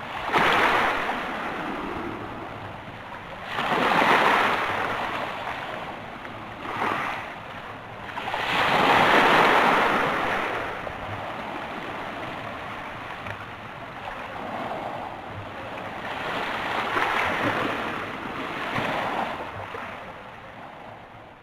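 Sea waves breaking and washing over a stony beach. The hiss swells and ebbs in surges, the strongest about nine seconds in, and others near the start, around four seconds and around seventeen to nineteen seconds. It fades toward the end.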